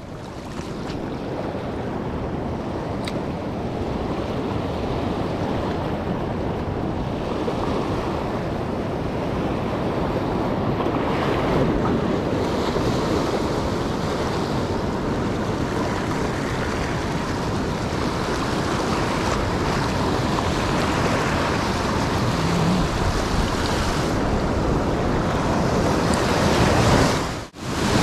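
Sea surf breaking and washing over shoreline rocks in a steady rush of water. It cuts out for an instant just before the end.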